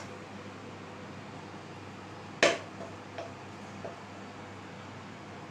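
One sharp clink of crockery about two and a half seconds in, followed by three lighter taps, over a steady low hum.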